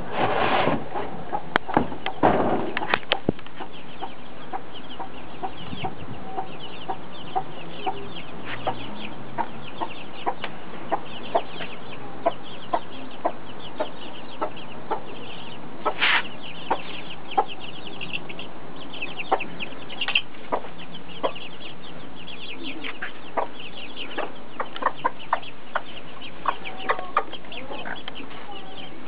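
A mother hen clucking in short, repeated notes while her chicks peep almost constantly in high, falling cheeps. There are a couple of rustling noises in the first few seconds.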